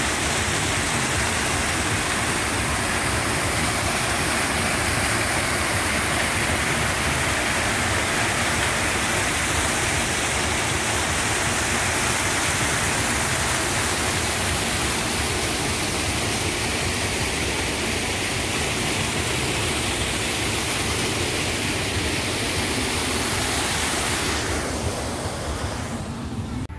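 Water rushing steadily through a lakeside spillway beneath a metal grate, a loud even rush that fades out near the end.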